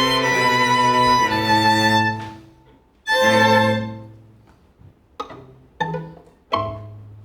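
A string ensemble of violins and cello plays held bowed notes that die away about two seconds in. A short loud chord follows, then three sharp, separate notes, each left to ring off.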